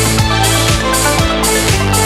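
Electronic background music with a steady kick-drum beat, about two beats a second, over a sustained bass line.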